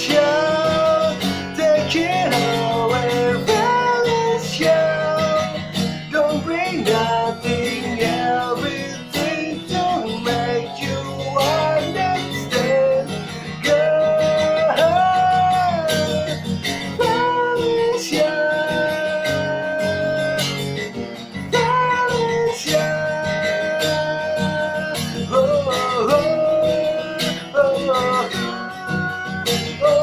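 A man singing with a strummed acoustic guitar accompaniment, his voice gliding between notes and holding several long notes.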